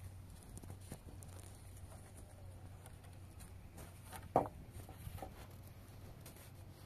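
Light knocks and scuffs of a long wooden pole being handled against a cinder-block wall, with one sharp knock about four seconds in and a smaller one just after.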